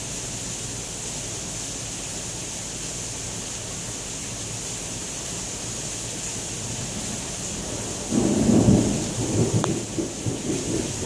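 Heavy rain pouring steadily in a thunderstorm, then thunder breaking about eight seconds in: a sudden loud, uneven rumble that keeps swelling in peaks.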